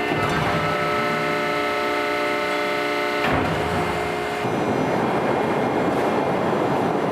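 Automated sheet-metal manufacturing machine running, with a steady mechanical whine of several tones. A sharp clank comes about three seconds in, and the sound then turns to a noisier, rushing hiss.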